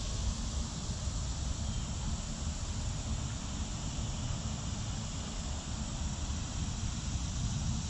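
Steady outdoor background noise: a low rumble with an even hiss above it, with no distinct events.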